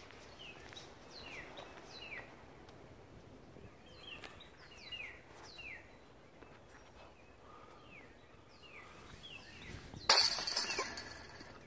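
A songbird calling repeatedly in short down-slurred chirps over faint outdoor background noise. About ten seconds in, a sudden loud clattering noise dies away over about a second.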